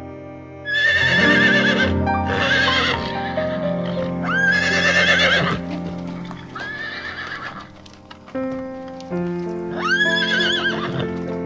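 Horse whinnying about five times over background music, each call a wavering, shaking whinny about a second long.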